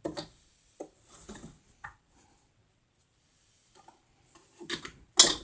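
Hand tools knocking and scraping against metal motor parts while the motor is pried apart: a series of short clanks and clatters, with the loudest knock near the end.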